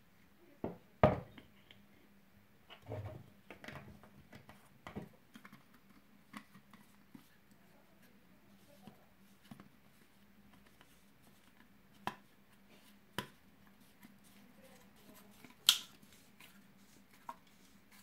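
Handling noises of a metal tin with a plastic spout and a small glass jar: scattered sharp clicks and light knocks, a loud one about a second in and the loudest a few seconds before the end, as a plastic cap is fitted and screwed onto the spout. A faint steady hum lies underneath.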